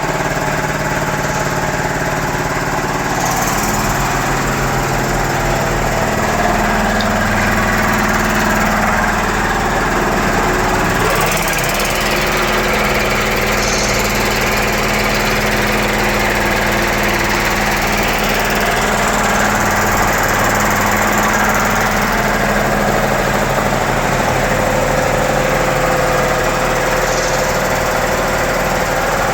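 United air compressor with a 5 HP four-pole electric motor running and pumping its 160-litre tank, a loud steady mechanical hum and clatter. The tone of the hum shifts slightly about eleven seconds in.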